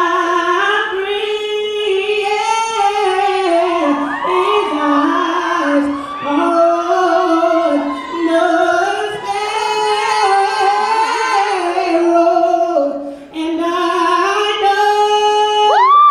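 A man singing a slow melody solo in a high register, holding long notes with no accompaniment heard. Right at the end his voice sweeps up to a higher note.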